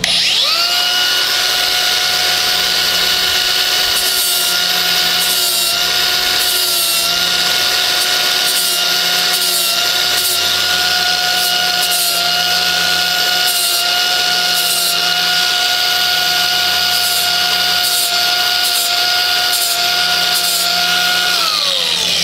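Angle grinder with a 60-grit flap wheel grinding fiberglass, beveling a shallow indentation around filled screw holes. It spins up at the start, runs as a steady whine that dips slightly in pitch under load, and winds down near the end.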